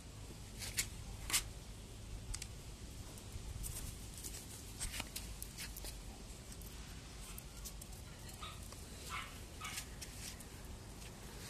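Yorkshire terrier puppies at play, scuffling, with a scatter of short sharp sounds; the two loudest come about a second in. A steady low rumble runs underneath.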